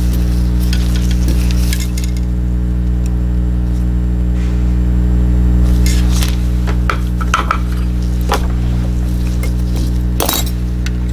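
Light clicks and clinks of small tools and tiny plastic-and-metal mouse parts being picked up and set down on a silicone work mat during a mouse switch repair, the loudest about ten seconds in, over a steady low hum.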